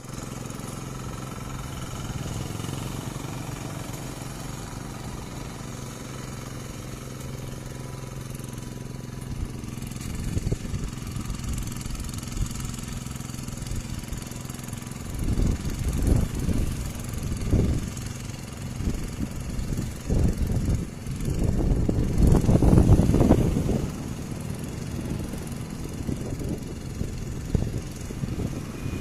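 A small engine runs steadily. Louder, uneven low rumbling surges come in over the second half.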